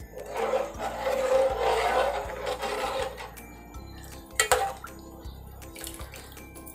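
Water poured into a metal pot of thin prawn curry, splashing for about three seconds, then a single clink of a steel ladle against the pot. Soft background music runs underneath.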